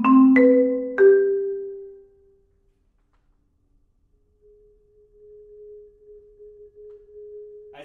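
Marimba: a few mallet strokes on different notes in the first second, ringing out and dying away by about two seconds in. After a pause, a soft single note held as a roll enters about four seconds in.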